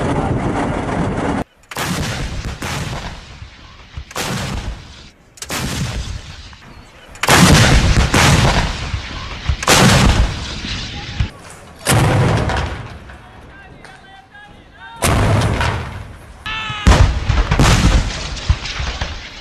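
A battery of towed field guns firing a string of heavy shots, one to three seconds apart, each with a sharp blast and a trailing rumble, while men shout between shots. Before the shooting starts there is a second or so of steady helicopter noise that cuts off suddenly.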